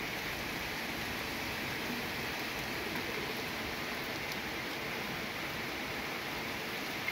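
Steady, even rush of heavy rain and storm floodwater running over a paved street.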